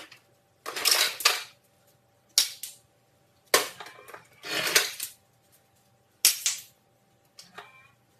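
Plastic toy bat banging against a stainless steel refrigerator door, about six hits spaced a second or so apart. Some hits come as a short clattering cluster.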